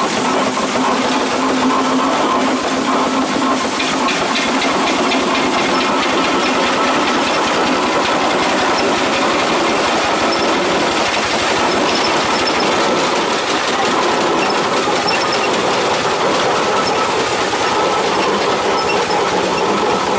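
Steam roller moving along under its own steam, a steady mechanical clatter with steam hiss as it rolls over gravel.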